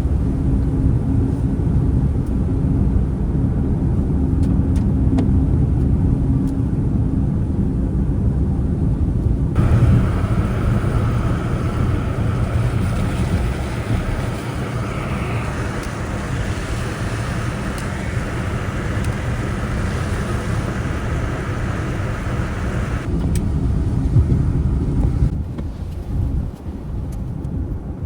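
Loud, steady low rumble of a running vehicle in typhoon wind. From about a third of the way in until near the end, a hiss of wind and rain spreads higher over the rumble, then drops away.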